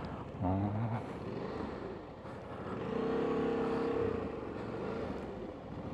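Motorcycle engines running on a dirt route: a short rev about half a second in, then a sustained engine note from about three to four seconds that swells and fades, over steady wind and road noise.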